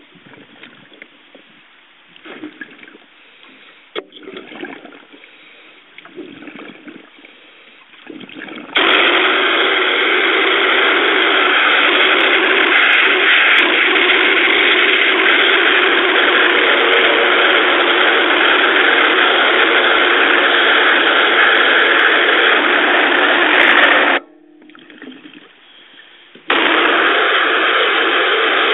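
Underwater cavitation cleaning gun firing its jet against marine growth on a ship's propeller: a loud, steady rushing noise that starts abruptly about nine seconds in, cuts off for about two seconds near the end, then starts again. Before it starts there is only fainter, uneven underwater noise.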